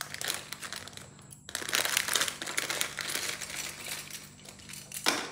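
Thin plastic bag crinkling as it is opened and handled, with the small plastic toy ducks inside clicking against each other. There is a short pause about a second in.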